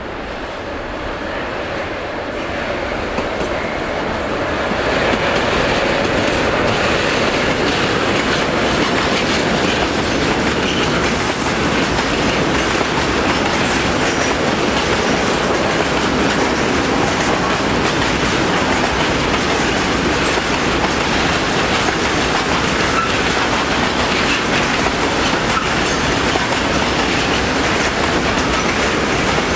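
Freight train of tank wagons passing close by: its noise swells over the first five seconds as it approaches, then holds as a steady rumble of the wagons' wheels running over the rails.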